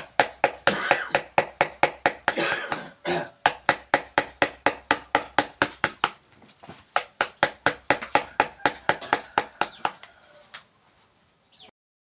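Mallet tapping a wood-carving chisel into wood in quick, even strokes, about four a second. There is a short break with a rough noise about two and a half seconds in, and the tapping stops about ten seconds in.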